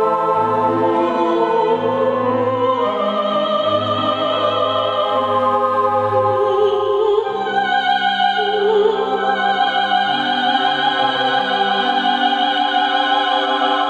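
Television programme's opening theme music in a classical style: orchestra with a choir singing long held notes over a slow-moving bass line.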